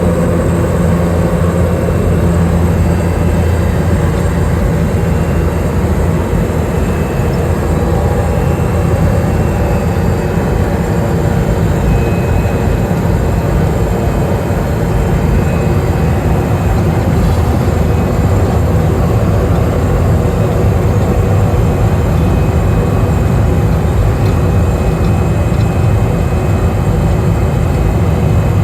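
Cessna Caravan's single Pratt & Whitney PT6A turboprop engine and propeller running at a steady, even power while the plane taxis. The sound is loud and unchanging, with a deep hum under a few faint steady higher tones.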